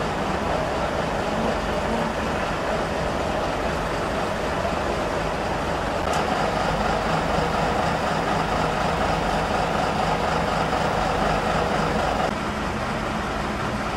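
Diesel engines of fire engines running at idle: a steady low rumble.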